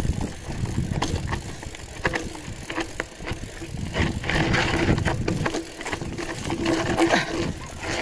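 Wind buffeting the microphone on a moving bicycle, with uneven low rumbling and scattered clicks and rattles from the bike.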